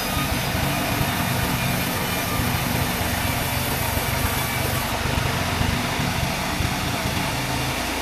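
Lorry engine driving a large band sawmill runs steadily, with the saw's drone going on as a teak board is fed through the vertical blade.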